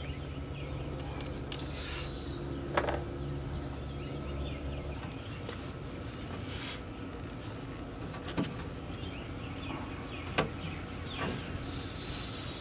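Sharp metallic clicks and clinks of hand tools and loose window-bracket parts being handled inside a car door, a few isolated strikes, over a low steady hum of a running vehicle that drops away about five seconds in.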